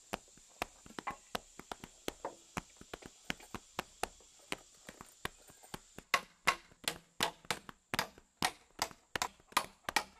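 Hammer driving nails into a wooden door jamb: a run of sharp knocks, faint at first, then louder and regular at about three a second from about six seconds in.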